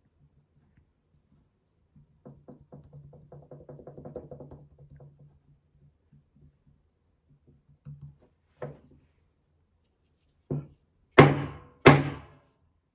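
Carved wooden kömbe cookie mould being knocked against a wooden table to release the pressed cookie: a few soft knocks, then three sharp wooden knocks close together near the end, the last two the loudest. Earlier, soft rapid patting as dough is pressed into the mould.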